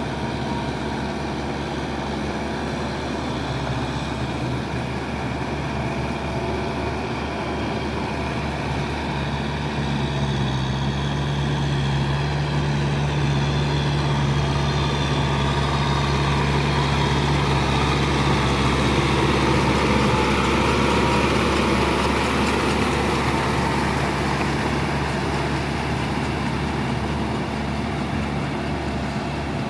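Kubota tractor's diesel engine running steadily, growing louder for a while about a third of the way in and easing off again near the end.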